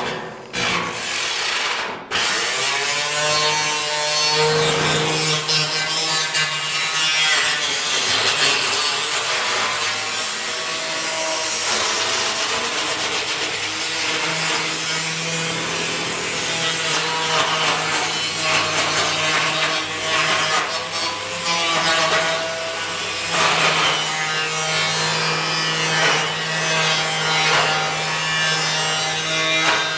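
Angle grinder grinding and cutting metal, the disc scraping with a harsh hiss over the motor's steady whine. The pitch sags and recovers as the disc is pressed into the metal. There is a short break about two seconds in, then continuous grinding.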